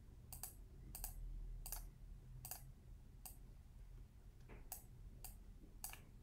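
Computer mouse buttons clicking, about eight or nine separate clicks at uneven intervals, roughly one a second or a little faster.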